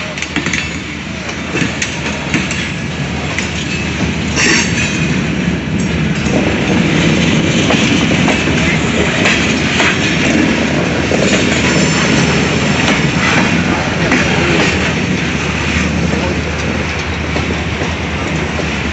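CSX freight train rolling by, its car wheels clattering over the rail joints with a steady rumble that grows louder over the first several seconds. Faint high wheel squeals come in around a quarter of the way through and again past the middle.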